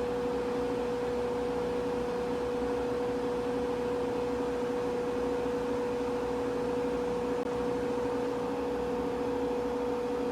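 Washing machine in its spin cycle, the drum spinning at a constant speed with a steady whine over a lower hum.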